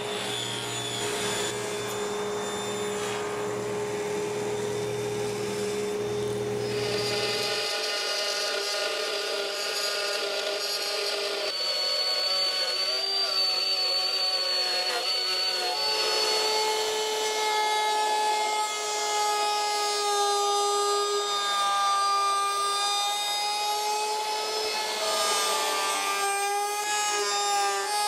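18-volt cordless trim router running and cutting wood panels: a steady high motor whine with the bit chewing through the board. The pitch shifts to a new steady note a few times as the cuts change.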